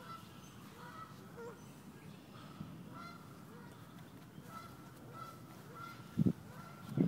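Canada geese honking, a string of short repeated calls. Two heavy thumps near the end are the loudest sounds.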